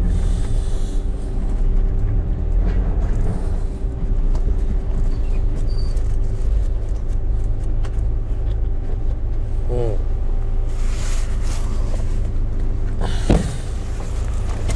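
A van's engine and road noise heard from inside the cabin as it drives along a dirt lane: a steady low rumble.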